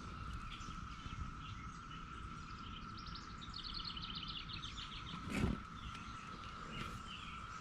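Outdoor ambience: a bird gives a rapid trill of repeated notes about three seconds in, over a steady faint high tone. A single dull thump comes about five and a half seconds in.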